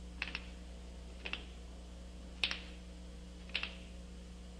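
A rolling pin knocking against a tabletop as it is worked back and forth, making a short double clack about once a second, over a faint steady electrical hum.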